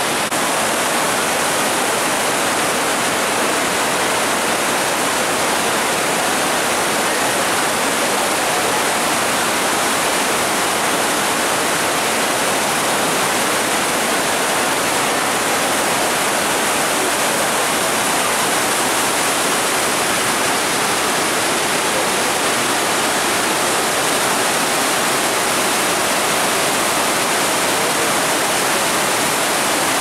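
The Rhine Falls, a large waterfall, giving a steady, loud, unbroken rush of churning water.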